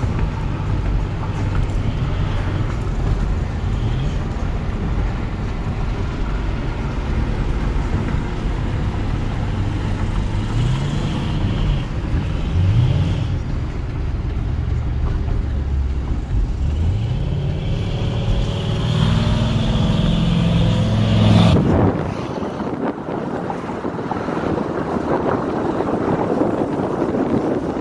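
Engines and exhaust of 1984 Chevrolet pickups accelerating, the low rumble rising in pitch several times as they pull through the gears. About 22 seconds in the engine sound drops away and steady wind and road noise takes over.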